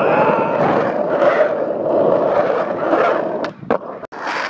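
Skateboard wheels rolling over asphalt, a steady rough rumble. It breaks off about three and a half seconds in, with a few sharp clicks and a short burst of other noise near the end.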